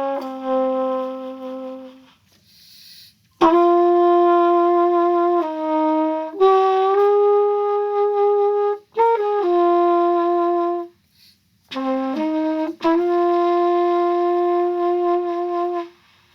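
Trumpet playing a slow lyrical phrase of long held notes that move smoothly from pitch to pitch, broken by a few short breath pauses. The playing stops shortly before the end.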